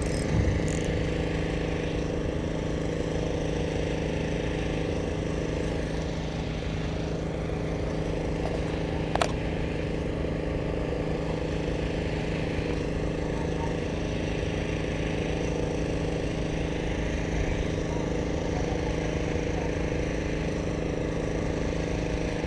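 A motor runs steadily at a constant pitch, a drone of several held tones over a rough noise floor. A single sharp click comes about nine seconds in.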